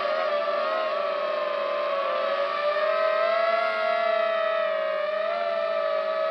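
Multirotor drone's electric motors and propellers whining steadily, heard from its own onboard camera, the pitch wavering up and down slightly as it manoeuvres.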